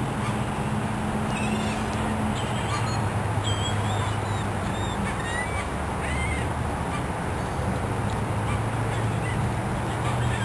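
Birds honking and calling in short, scattered calls over a steady low hum and background noise.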